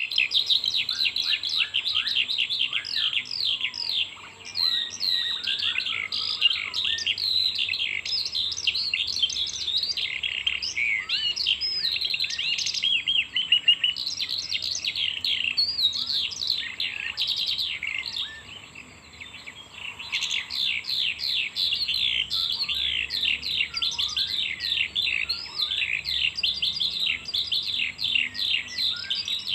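A songbird singing a long, fast, almost unbroken stream of high chirps and trills, with a brief pause about two-thirds of the way through.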